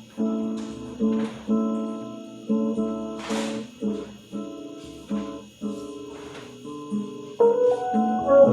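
Instrumental music: strummed acoustic guitar chords, with a brief percussive hit about three seconds in and more instruments joining near the end.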